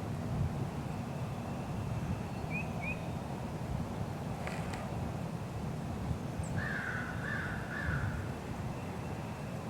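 A crow cawing three times in quick succession, with a couple of faint small-bird chirps earlier, over steady low outdoor rumble.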